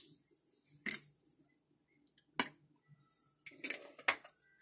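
A few short clicks and knocks from handling the plastic olive oil bottle after pouring oil into the pan: one about a second in, another about halfway, and a small cluster near the end.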